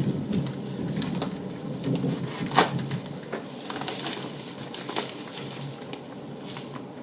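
A mailed package of vinyl records being opened: irregular crinkling and rustling with scattered sharp clicks, the sharpest about two and a half seconds in.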